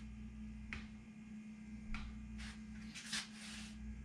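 Small clicks and scrapes from tools being handled at a steel tool chest: a handful of short sounds spread about a second apart, the longest a scrape about three seconds in, over a steady low hum.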